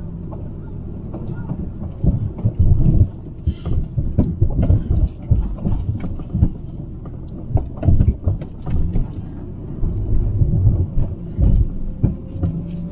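Jeep engine running at low speed off-road, with frequent irregular knocks and thumps as the vehicle works over rough ground.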